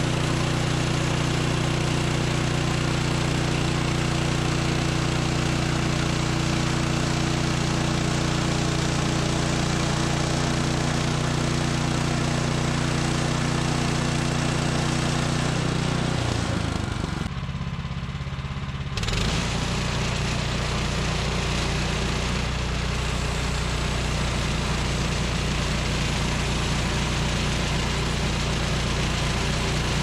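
Woodland Mills HM126 portable band sawmill's 14 hp gasoline engine running under load as the band blade cuts through a cedar log. About halfway through, the engine note drops and briefly dips in loudness, then runs on steady at a lower pitch.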